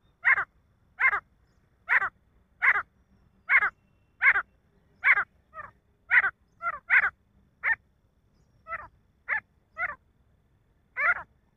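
Male grey francolin calling: a long series of loud, sharp notes, each falling in pitch, about one and a half a second at first, then coming less evenly, with some weaker notes and a short pause near the end.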